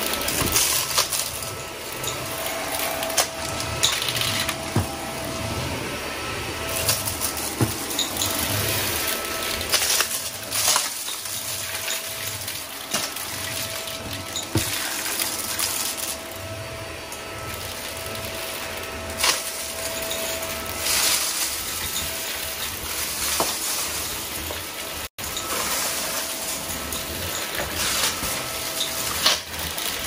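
Vacuum cleaner running with a steady motor whine, its noise swelling and easing every few seconds as it is pushed back and forth. A few sharp clicks and clinks sound through it.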